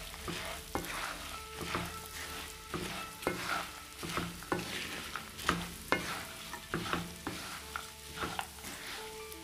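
Poha (flattened rice) being stirred into fried peanuts, chana and spice powders in a frying pan, in repeated scraping strokes against the pan, about one to two a second, with the oil sizzling underneath.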